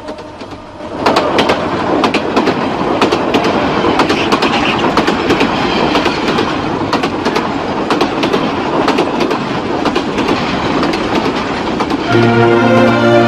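Train running on the rails, with a dense rumble and sharp, irregular clacking of the wheels over rail joints that comes in about a second in. Sustained organ-like music chords come in near the end.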